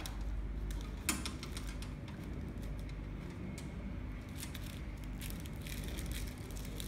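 Plastic packing film being threaded by hand through a packing machine's rollers and guides: scattered light crinkles and clicks, one sharp click about a second in, over a steady low hum.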